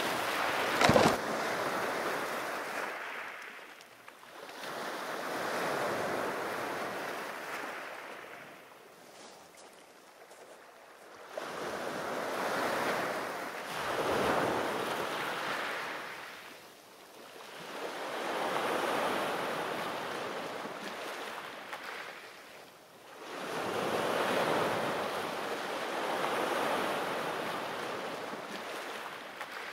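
Small waves breaking and washing over a pebble beach, the rush of surf swelling and fading every five or six seconds. There is a sharp thump about a second in.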